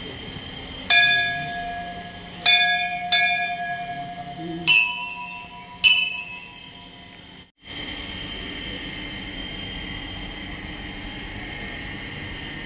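Hanging temple bells rung by hand five times as people enter, each strike ringing out and fading. The first three strikes are on one lower bell and the last two on a higher-pitched bell. About seven and a half seconds in, the ringing cuts off and a steady hum follows.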